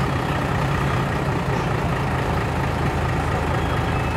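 Large truck's diesel engine idling steadily, a constant low rumble.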